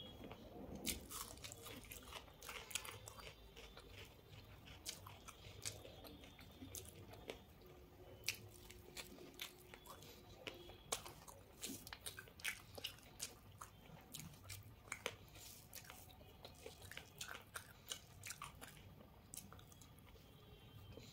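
A person chewing food close to the microphone, with many short, irregular crunches and mouth clicks.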